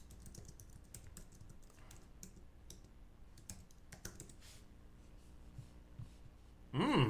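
Faint, irregular typing and clicking on a computer keyboard: scattered soft key taps. A voice starts right at the end.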